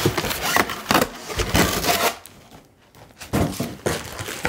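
Cardboard box and styrofoam packing scraping and rubbing as a heavy, plastic-wrapped floor-lamp base is worked out of the box, with a few short knocks and rustles. It goes quieter for about a second past halfway.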